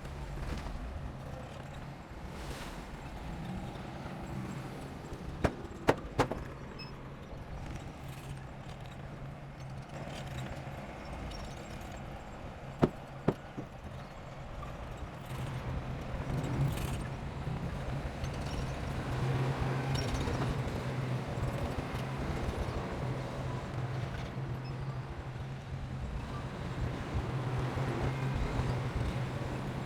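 Diesel engine of heavy earthmoving equipment running steadily, getting louder about halfway through. A few sharp metallic clanks ring out about six seconds in and again around thirteen seconds in.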